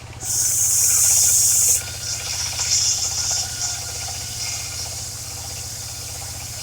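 Engine-driven circular saw of a mobile sawmill cutting waru wood: the blade bites in with a loud hiss just after the start that lasts about a second and a half, then goes on with weaker, uneven hissing, over the engine's steady low drone.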